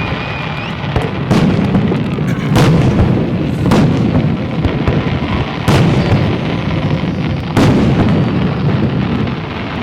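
Aerial fireworks shells bursting: five sharp booms at uneven intervals over a continuous low rumble.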